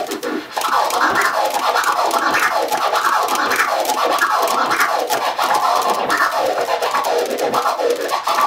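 Turntable scratching: a vinyl record is pushed forward and back by hand while the crossfader is clicked four times on each stroke. This four-click orbit chops every stroke into short rising and falling sounds, in a steady, continuous run from about half a second in.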